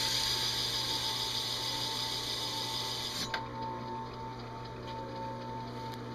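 Drill press running with a steady hum while its spinning abrasive disc is pressed onto an aluminium dash panel, giving a loud scrubbing hiss as it grinds one swirl of an engine-turned pattern. The disc is lifted off about three seconds in with a click, leaving the drill press running on its own.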